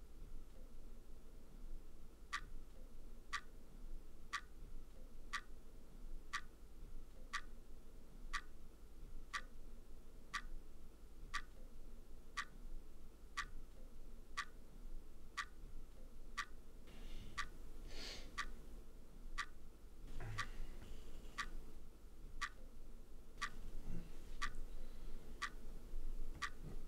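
Quiet clock ticking steadily, about one tick a second, starting about two seconds in. A brief rustle past the middle and a soft low thump shortly after.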